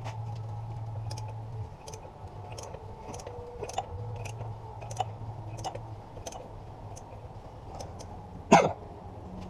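A ratchet on a 36 mm socket clicking at a slow, even pace, about one to two clicks a second, as the BMW S14 engine is turned over by hand. One much louder knock comes near the end.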